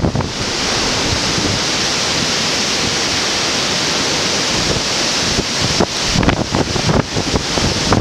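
Hurricane-force Bora wind blowing hard, a loud steady rush of wind with wind buffeting the microphone. It turns gustier and choppier from a little past halfway.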